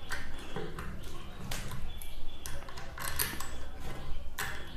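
Small metal ceiling fan parts clinking and clicking as they are handled and fitted during assembly: a run of irregular sharp clicks, a few louder than the rest.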